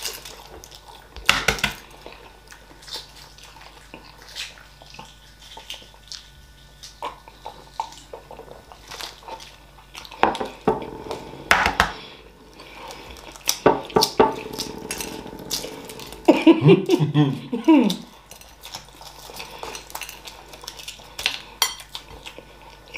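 Hard-boiled eggshells being cracked and peeled by hand, with scattered sharp clicks and crackles of breaking shell and light clatter against ceramic plates. A short voiced sound comes about three-quarters of the way through.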